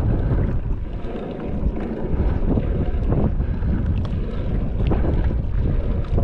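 Strong wind buffeting the microphone in a steady low rumble, with a few short ticks heard over it.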